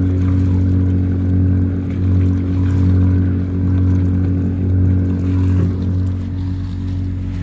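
Inboard engines of a 1982 Bertram running at idle: a steady low drone that swells and ebbs about once a second, with water churning and bubbling against the hull.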